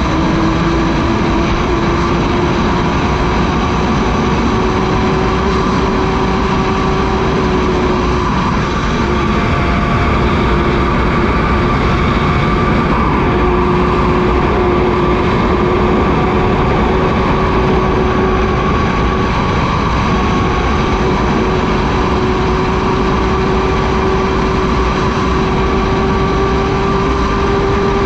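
2017 Honda CBR1000RR SP1's inline-four engine pulling hard at high revs in sixth gear, its note rising slowly as the bike accelerates from about 210 to 260 km/h. Heavy wind rush runs under the engine.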